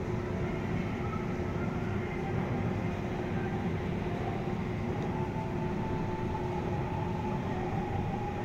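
Steady mechanical drone and rumble with a few held humming tones, unchanging throughout.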